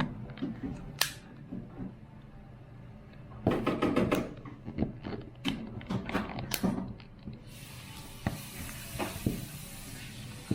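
Small clicks, taps and handling noise of a smartphone and small tools being worked on a bench, with two busier bursts of fiddling about a third and two thirds of the way through.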